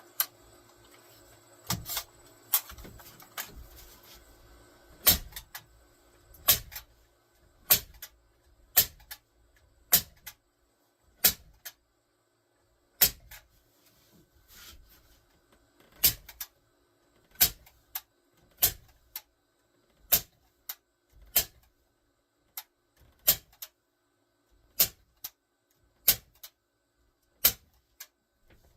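Staple gun firing staples through rubber-backed carpet into a wooden dolly frame. It makes a sharp snap about every second or so, about twenty shots in all, many heard as a quick double click.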